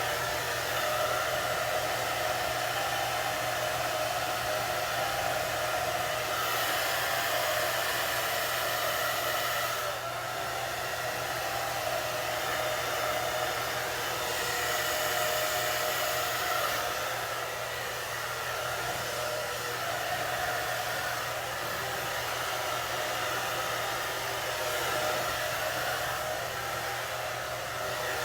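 Handheld hair dryer running steadily, blowing hot air onto a synthetic wig's bangs; its whoosh shifts slightly as it is moved around.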